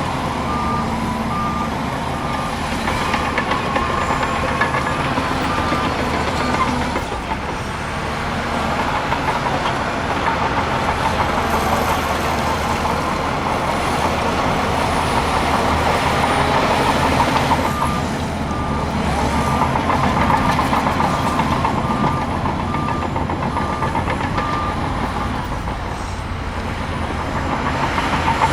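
Heavy earthmoving machine's diesel engine running under load, with its reversing alarm beeping about twice a second in two stretches: one from the start for several seconds, and another from about two-thirds of the way through.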